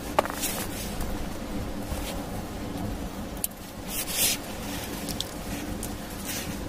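Vegetables being handled and set on a stainless steel plate: a light clink just after the start, then several short soft rustles, over a steady low hum.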